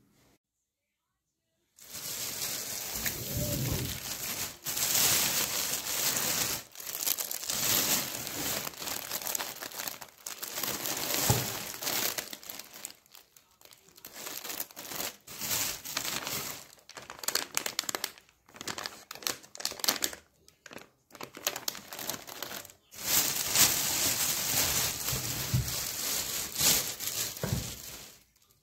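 Plastic carrier bags and the plastic wrapping of a napkin pack crinkling and rustling as they are handled, in bursts with short pauses, starting about two seconds in.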